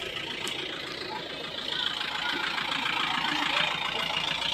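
A vehicle engine idling close by, under a steady hiss that grows a little louder about one and a half seconds in, with faint voices in the background.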